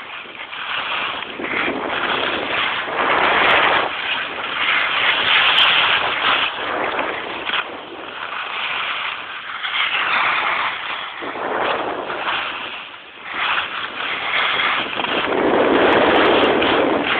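Rushing noise of a downhill run on snow: wind over the microphone mixed with the hiss of edges scraping across the snow. It swells and fades every few seconds with the turns and is loudest near the end.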